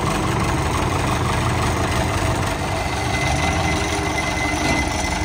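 Towable wood chipper's engine running steadily, with a faint high whine coming in about three seconds in.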